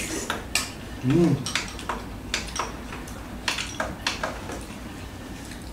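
Close-up eating sounds: a string of short, sharp mouth smacks from chewing and clinks of a spoon against a rice bowl, with a brief hummed voice sound about a second in.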